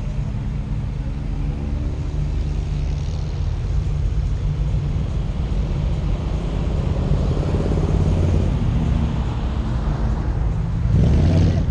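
Car engine idling with a steady low, lumpy rumble while the car stands still. Another car's engine swells up as it passes close by near the end, the loudest moment.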